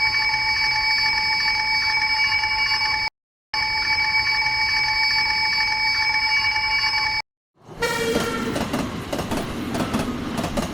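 Railway level-crossing warning bell ringing steadily in two stretches, broken by a short gap about three seconds in, then stopping about seven seconds in. A train then passes with a rumbling rush.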